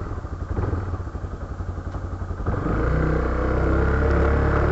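Motorcycle engine, apparently a Honda CB300, running with an even fast pulse. About halfway through, the bike pulls away: the sound becomes louder and steadier, with a slowly rising engine tone and low wind rumble on the microphone.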